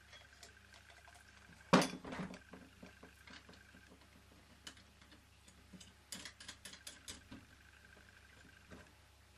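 Handling noise on a wooden workbench while a toy steam engine is filled from a plastic syringe: one sharp clack about two seconds in, then scattered light taps and clicks of small parts, with a quick cluster of them around six to seven seconds.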